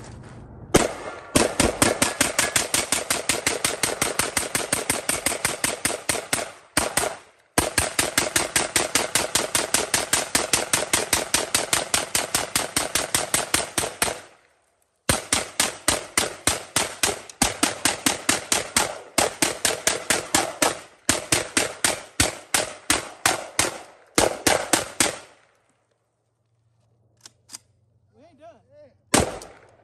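AK-47 rifle in 7.62×39 mm firing long strings of rapid shots from a 100-round drum magazine. The firing breaks off briefly about 7 and 14 seconds in, comes in shorter groups after that, and stops about 25 seconds in.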